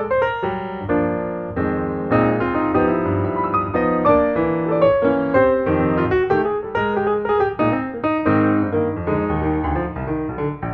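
Piano background music, a steady flow of notes with no pause.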